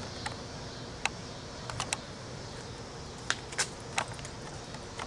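A handful of light, sharp clicks and ticks at irregular intervals over a faint steady background hiss.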